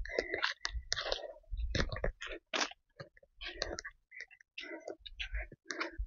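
Footsteps of people walking on a dirt trail strewn with dry leaves: an irregular crunching, about two or three steps a second.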